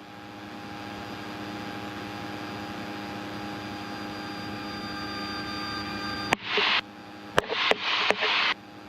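Light aircraft's piston engine and propeller droning steadily inside the cabin. About six seconds in, a sharp click, then short bursts of radio static and more clicks.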